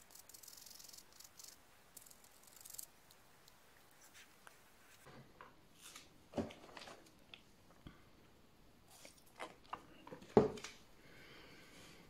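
A toothpick scraping grime out of the gap around a TV remote's direction pad, a faint scratching over the first three seconds. After that come scattered light clicks and knocks as small objects are handled on the table, the loudest about ten seconds in.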